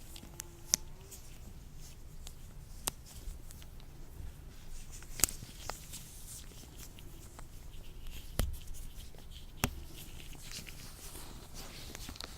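Latex gloves on hands being rubbed and handled close to the microphone: soft rustling broken by scattered sharp snaps and crackles of the rubber, about one every second or two.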